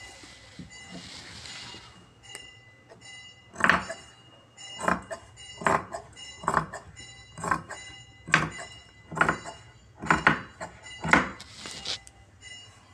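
Large tailor's shears cutting through folded fabric: about ten sharp snips, roughly one a second, starting a few seconds in and stopping near the end.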